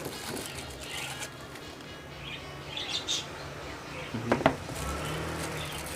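Small birds chirping in the background, a few short chirps about two to three seconds in and again near the end, over a low steady hum.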